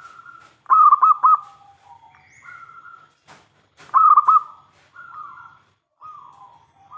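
Zebra dove (perkutut) singing its cooing song: two loud bursts of rapid stuttering coos, about a second in and again at about four seconds, with softer, longer coos between and after them.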